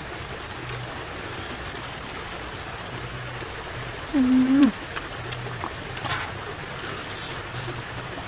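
A woman chewing a mouthful of food with light mouth clicks. About four seconds in she gives one short hummed "mm" that dips at the end, over a steady background hiss.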